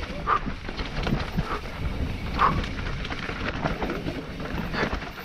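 Mountain bike descending a rough dirt trail at speed: tyres rumbling over the dirt with a rapid run of rattles and knocks from the bike, and wind on the helmet-mounted microphone.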